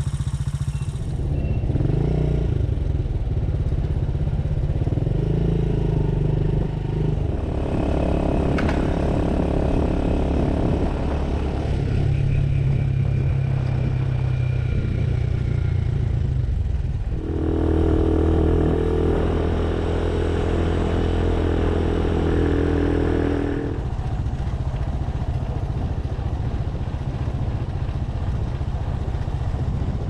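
Motorcycle engine running while riding, heard from the rider's position. It holds a steady pitch for a few seconds at a time, then jumps to a new pitch several times.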